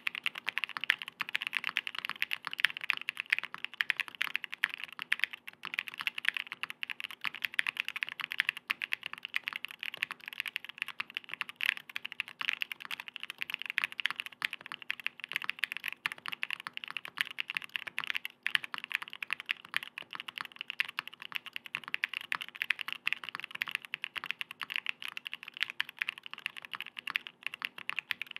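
Continuous fast typing on a 65% mechanical keyboard with factory-lubed KBDFans prototype switches in a PC plate and PBT keycaps: a steady stream of rapid keystroke clicks with short pauses about 8.5 and 18.5 seconds in.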